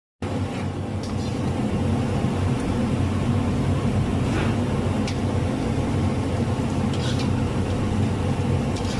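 Small gram-flour pakoras sizzling as they deep-fry in hot oil in a steel karahi, over a steady low rumble. A few light clinks of a perforated metal skimmer against the pan come in the second half.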